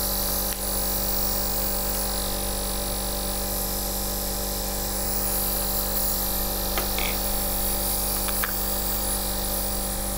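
Drive JetNeb compressor nebulizer running: a steady motor hum with a hiss of air, the sound of the unit working normally and pushing mist out of the medication cup.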